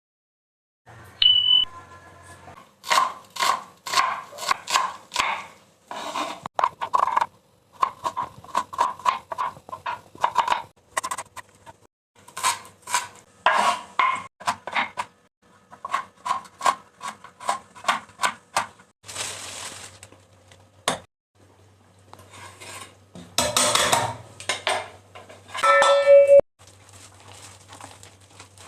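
Metal kitchen utensils clinking and knocking against steel bowls and pots in a long run of sharp, ringing strikes, with a brief hiss about twenty seconds in.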